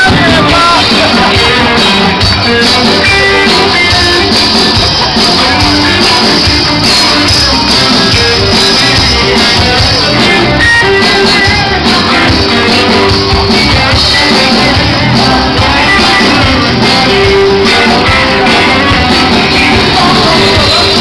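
Loud music with guitar and singing, in a rock style.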